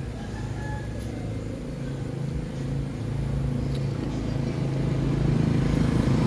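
Motorcycle engine running steadily at low revs, growing gradually louder toward the end.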